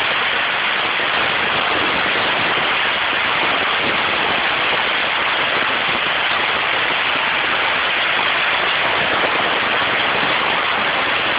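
Steady rush of wind over the microphone of an open car driving at road speed, a constant noise with no clear engine note.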